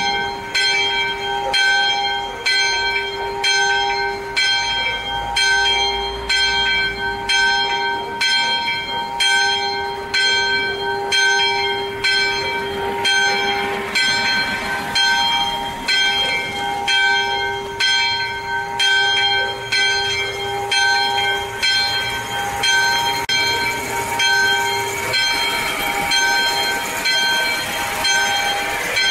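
Swinging church bell, the sonello, striking steadily a little over once a second, each stroke ringing on. It is the call rung a few minutes before Mass. In the last few seconds a rising rushing noise builds beneath the bells.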